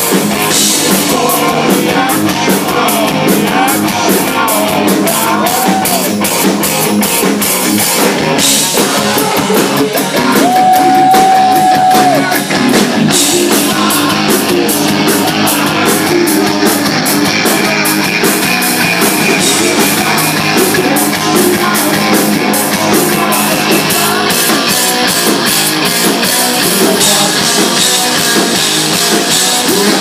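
Live hard rock band playing an instrumental passage: a drum kit pounding with constant cymbal hits, electric guitar, bass and keyboards. A single long note is held for about two seconds around ten seconds in.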